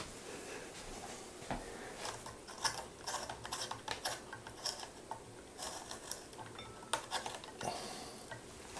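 Small irregular clicks and short scrapes of a light bulb being handled and screwed tighter into its socket in a ceiling fan's light kit, a bulb that had been left loose.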